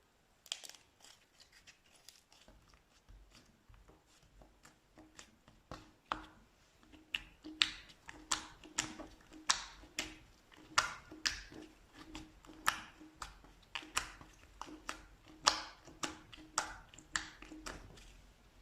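Slime being handled, giving sharp sticky clicks and pops at an irregular pace, sparse at first and coming one or two a second from about six seconds in.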